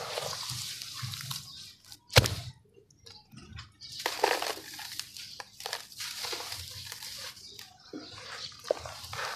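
Hands squeezing and crumbling wet sand and cement in a basin of water: irregular squelching, crunching and dripping splashes. A single sharp knock about two seconds in is the loudest sound, followed by a brief near-quiet gap before the handling resumes.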